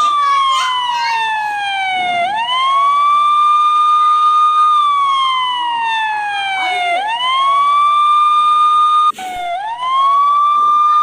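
Police siren in a slow wail: the tone climbs quickly, holds high for a couple of seconds, then slides down slowly before climbing again, about every four and a half seconds. It breaks off briefly about nine seconds in and starts again from low.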